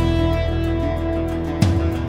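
Background music led by guitar, with a strong new note or chord struck about one and a half seconds in.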